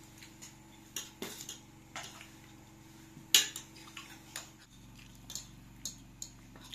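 Metal spoons clinking and scraping against plates while eating: a string of short, scattered clinks, the sharpest one a little over three seconds in.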